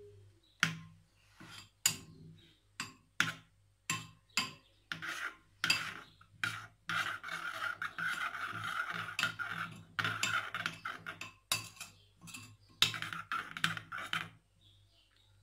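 Metal spoon stirring and scraping a mixture against the sides of a glass bowl: a run of sharp taps and clinks, then longer rasping scrapes, stopping a second before the end.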